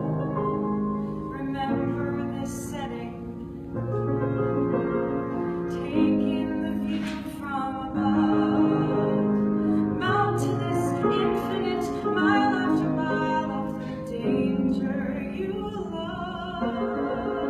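Piano playing the accompaniment of a musical-theatre song in sustained chords that change every second or two.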